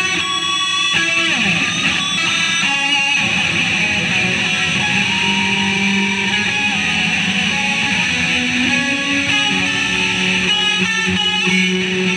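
Electric guitar played through a Line 6 combo amplifier, with held notes and sliding pitches, including a falling slide about a second in.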